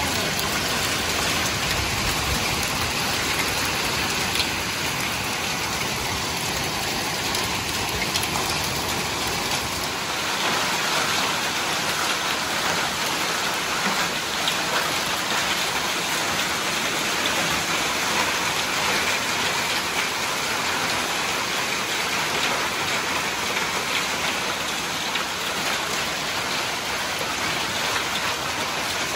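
Small hail and heavy rain falling on wet brick paving and a rendered balustrade: a dense, steady hiss of impacts with a few sharper ticks.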